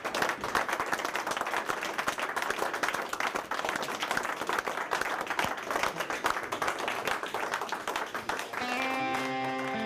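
People clapping in applause, quick irregular claps throughout. Guitar music comes in near the end.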